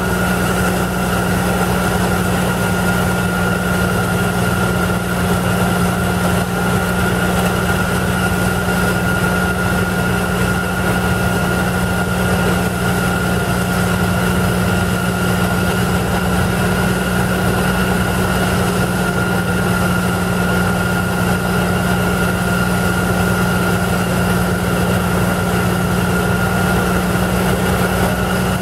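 Pneumatic rock-drilling rigs running steadily on a slope: a constant low drone with a steady higher tone above it and a wash of air and machine noise, unchanging throughout.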